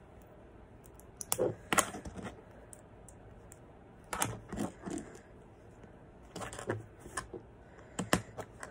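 Small plastic Lego pieces clicking and clattering as they are handled and snapped together, in scattered short clicks with gaps between them.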